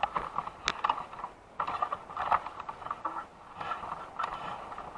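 Handling noise: scattered light clicks, taps and scraping, with one sharper click just under a second in.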